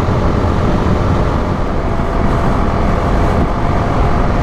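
Motorcycle riding at road speed in traffic: a steady rush of wind and road noise on the rider's microphone, with the engine running underneath.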